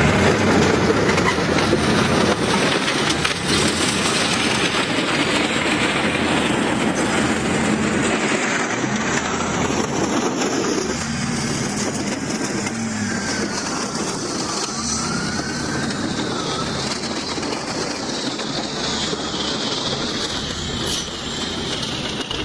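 Heavy diesel machinery running hard during a towing attempt: a dense, steady rumble with rattling.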